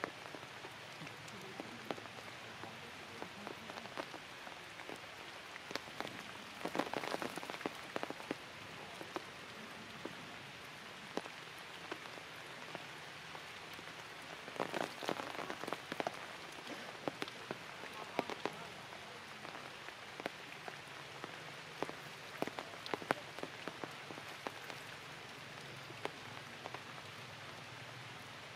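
Light rain pattering on forest leaves: a steady hiss scattered with sharp drip ticks, with two thicker spells of drips about a quarter and half way through.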